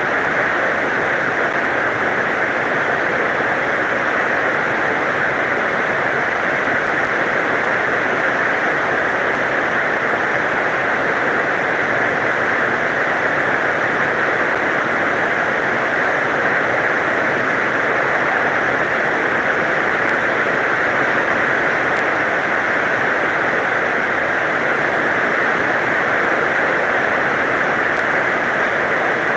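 Heavy rain falling steadily, an unbroken dense hiss with no thunder.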